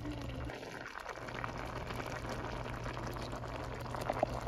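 Creamy chicken and spinach sauce simmering in a stainless steel pot: a steady bubbling hiss with a few small pops near the end.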